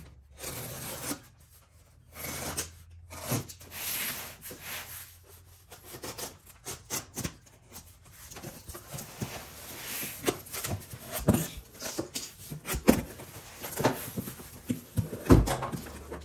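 A shipping package being opened and unpacked by hand: irregular scraping and rubbing of cardboard and packing material, with knocks from the parts being handled. Several sharper knocks come in the second half.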